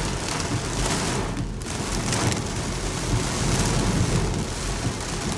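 Rain pelting a car's windshield and roof, heard from inside the car: a dense, steady hiss over a low rumble.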